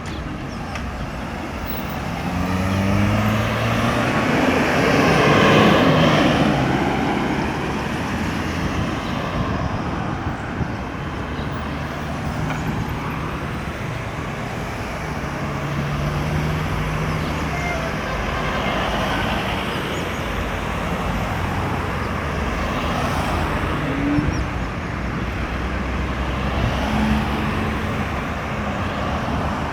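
Steady road traffic with engines and tyres running past; one vehicle passes close and loudly about five seconds in.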